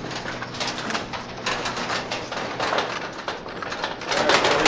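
Footsteps of people walking, about two steps a second, getting louder near the end.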